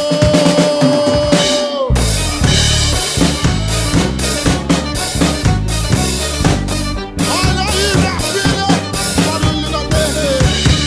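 Acoustic drum kit played live over a recorded gospel song with a singer: snare, bass drum and cymbals in a busy, driving pattern. The full beat comes in about two seconds in, after a held sung note.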